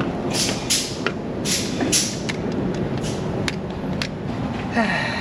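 Steady repair-shop background noise with several short hissing bursts and a few sharp clicks, sounds of hands-on work at an engine bay.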